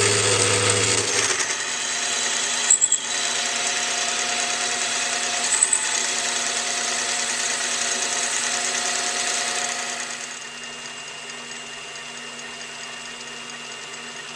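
Machine drilling a 19/64 inch bore into a steel bar, steady cutting noise over the motor with two sharp clicks, the drilling stopping about ten seconds in and leaving only a low hum.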